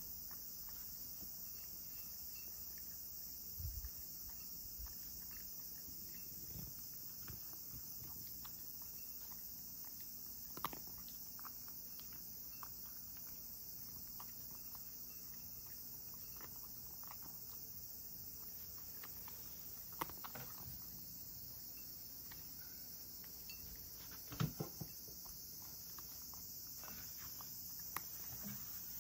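A cat crunching dry kibble from a ceramic bowl: scattered small crunches and clicks, with a few louder clicks, over a steady high hiss.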